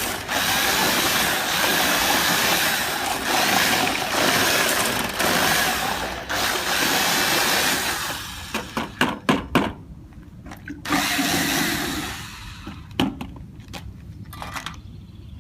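Electric drill with a paddle mixing blade running at speed, whisking fibre-reinforced cement repair mortar in a mixing container. It runs steadily for about eight seconds and then stops. A quick run of short knocks and one more short burst of mixing follow.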